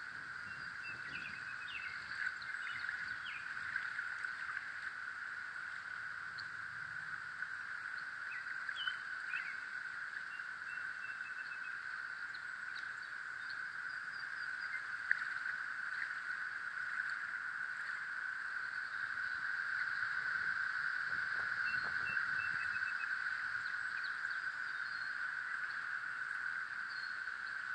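Outdoor ambience: a steady high-pitched hum throughout, like a distant insect or frog chorus, with scattered short bird chirps.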